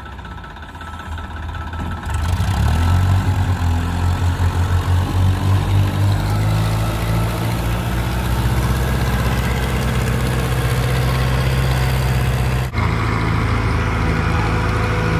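Tractor diesel engine running steadily. It grows louder about two seconds in and slowly rises in pitch, then breaks off abruptly near the end into a slightly different engine note.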